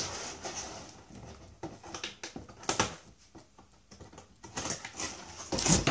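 Cardboard boxes being handled and a taped inner carton opened with a knife: scattered knocks and scrapes of cardboard, then denser rustling and scraping that builds near the end.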